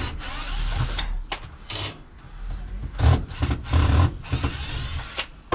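Irregular knocks, clanks and rattles of scrap metal being handled, over a low steady hum.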